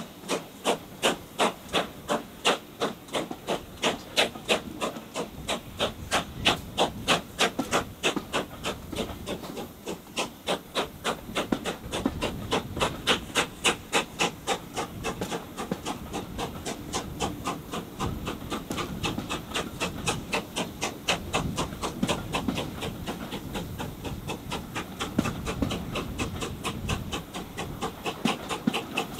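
Steam locomotive working hard at the head of a passenger train, its exhaust beating out a rapid, even chuff at a few beats a second over the rumble of the coaches on the rails. It is heard from a carriage window behind the engine. The beats are strongest in the first half and ease back into the rolling rumble of the coaches towards the end.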